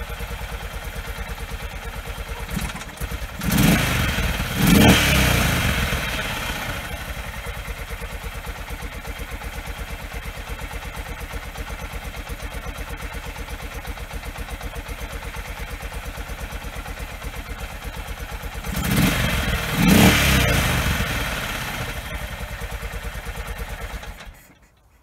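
Condor A350's single-cylinder four-stroke engine idling on its open exhaust with an even beat. The throttle is blipped twice about four seconds in and twice again around twenty seconds in. The engine is switched off just before the end.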